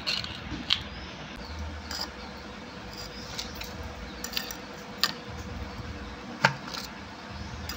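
Plastic ice-pop mould being handled: a handful of sharp, separate clicks and knocks as the plastic stick-handles are worked and frozen ice pops are pulled out and set down on a ceramic plate.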